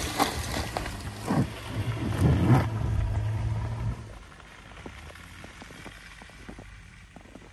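Jeep Grand Cherokee engine running under throttle as it pushes along the trail, with loud rough bursts of noise over the first three seconds. The engine sound drops away about four seconds in, leaving faint scattered clicks.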